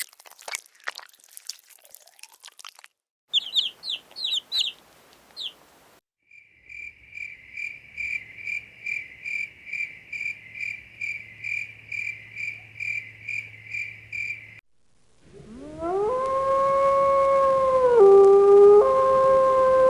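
A run of separate animal sounds: a few crackling crunches, a brief burst of high chirps, then a steady series of high chirps at about two a second. The loudest part, which starts late and is sustained, is a dog howling: the howl rises at the start, holds, and dips in pitch briefly near the end.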